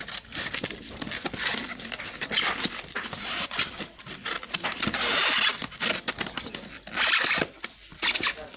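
Hands rummaging in a cardboard box with a styrofoam packing insert: foam and cardboard scrape and rustle in irregular bursts as a packed mini air compressor and its hoses are worked loose, with louder scrapes about five seconds in and again about seven seconds in.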